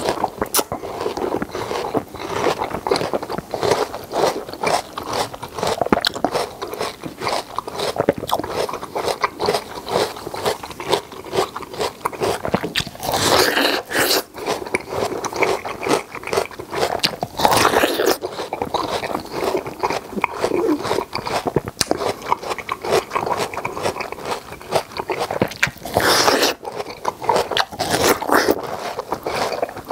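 Close-miked biting and chewing of juicy watermelon flesh eaten straight from a half yellow-rinded watermelon, a steady run of wet, crunchy bites. There are a few louder moments, about 13 seconds, 18 seconds and 26 seconds in.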